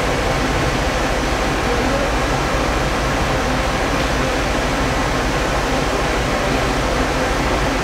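Electric multiple unit moving slowly away along the station tracks, heard as a steady rushing noise that stays at one level with no distinct clicks or tones.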